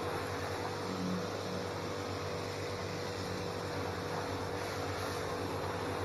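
Stihl pressure washer running steadily, its motor and pump humming under load with the even hiss of the water jet.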